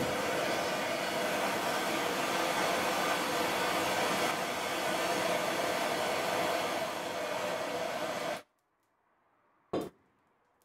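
Handheld gas blowtorch burning with a loud steady hiss, its flame played on the rusty eye of a leaf spring to heat it and melt the rubber bush out; the hiss stops suddenly after about eight seconds. A brief sharp knock follows near the end.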